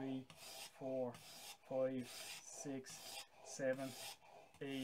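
Plane blade clamped in a Veritas Mk II honing guide being pushed back and forth on a wet water stone, a rhythmic rasping rub about once a second as the cambered edge is honed.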